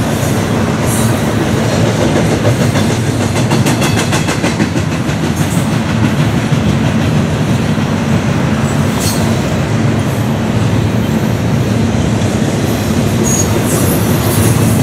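Freight train of double-stack container cars rolling past. The wheels give a steady rumble on the rails, with a quick run of clickety-clack over rail joints a few seconds in.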